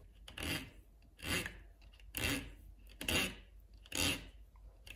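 Fine-tooth hacksaw blade rasping back and forth over a thin wire on a PCB tie, five short strokes about a second apart. The blade is scoring a guide mark in the wire, not cutting through it.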